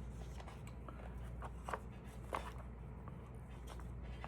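Faint scattered ticks and rustles of stamps and paper covers being handled, over a steady low hum.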